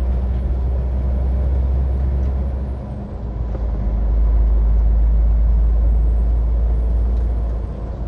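Truck engine running with a steady low drone and tyre noise on the wet road, heard from inside the cab; it dips briefly about three seconds in, then swells louder.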